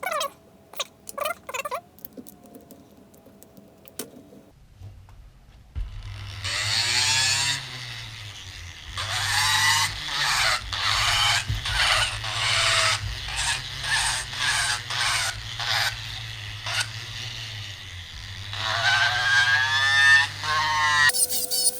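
Vevor 780W flex shaft grinder carving wood: a few clicks, then the motor starts about four seconds in and runs, its bit grinding into the wood in repeated loud bursts. The whine rises and falls as the speed is changed with the foot pedal.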